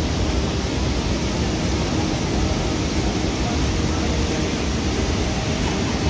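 Waterfall water rushing into a rock pool, a steady, even noise without breaks.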